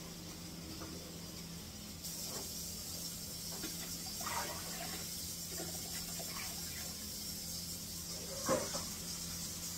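Water running at a kitchen tap and being poured from a stainless steel bowl into a plastic fermenting bucket, topping up homebrew wort with water. The steady running starts about two seconds in, with splashes and clinks around the middle and a sharper knock near the end.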